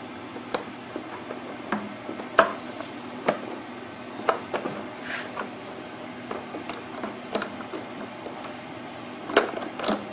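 Irregular clicks and knocks of a small 79.7 cc generator engine's valve cover being forced out past the generator's plastic frame, with hands on hard plastic. The loudest knock comes about two and a half seconds in, and there is a quick cluster of knocks near the end.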